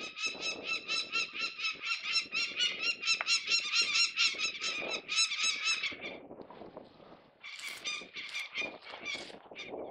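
Peregrine falcon giving its harsh, rapid cacking alarm call, about four to five notes a second, typical of an adult defending its eyrie against a person on the cliff. The calling runs for about six seconds, breaks off, and starts again near the end.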